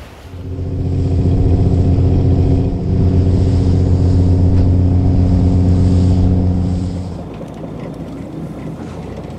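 Fishing boat's engine running at a steady speed, a loud even drone that drops to a lower, rougher level about seven seconds in.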